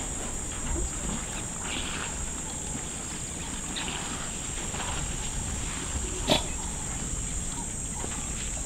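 Quiet sounds of an African elephant herd moving over stony ground: a few short, breathy rustling noises and one sharp click about six seconds in.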